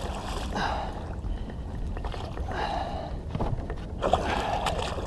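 Steady low rumble and faint hum of a small fishing boat on the water, with a few short swishes.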